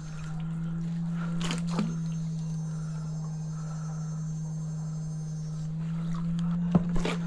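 Steady low electrical hum with a faint high whine over it, from a battery-powered electrofishing unit running. Two brief sharp splashing or knocking sounds come about a second and a half in and near the end.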